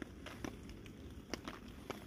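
A few faint, scattered clicks and taps as cooking oil is poured from an upturned plastic bottle into a stainless steel pot, over a low steady background hiss.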